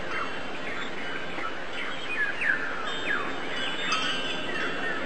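Small birds chirping: many short, quickly falling chirps that overlap one another, over a steady hiss.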